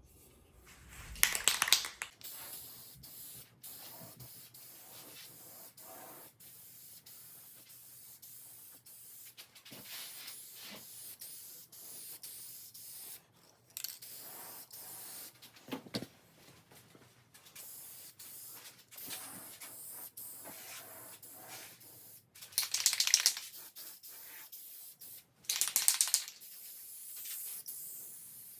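Spray can of oil-based finish hissing in bursts: one near the start and two longer ones near the end, with fainter hissing between.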